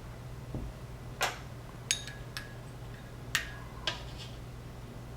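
A metal measuring spoon clinking lightly against a container about five times, short sharp taps each with a brief ring, as baking soda and baking powder are spooned in.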